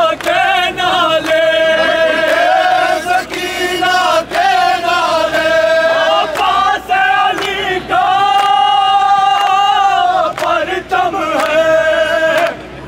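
Male voices chanting a noha, a Muharram lament, in long drawn-out held notes that waver and break every second or two, over a crowd. A few sharp knocks fall at irregular moments.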